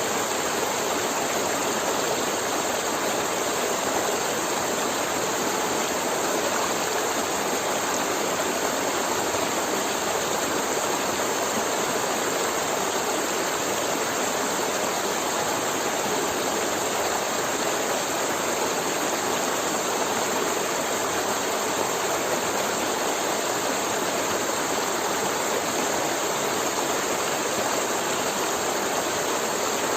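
River water flowing in a steady, unbroken rush.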